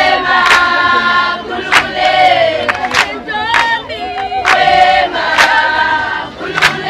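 A large group of Zulu maidens singing and chanting together, with a sharp beat about every second and a quarter keeping time for the dancers.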